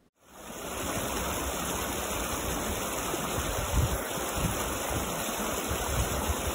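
Shallow creek running over rocks: a steady rush and babble of water that fades in at the start.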